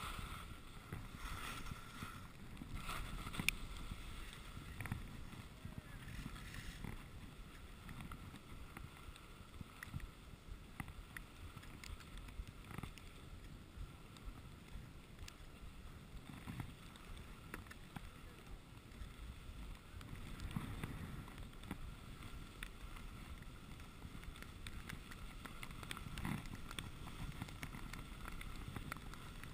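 Skis running over packed snow: a steady low rumble and hiss with scattered small clicks, heard through a GoPro's microphone along with wind on it.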